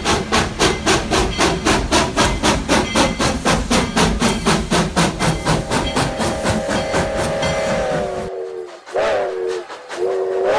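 Steam locomotive chuffing in rapid, even exhaust beats, fading as a steam whistle comes in with a chord of several notes. The whistle breaks off, gives two short rising toots, then sounds steadily again near the end.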